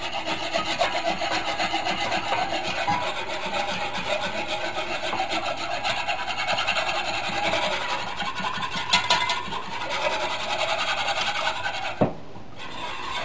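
A spoon stirring flour and water into a paste in a glass measuring cup, a fast, continuous scraping. There is a sharp knock about twelve seconds in, and after a brief pause a whisk starts scraping through pan drippings in a roasting pan near the end.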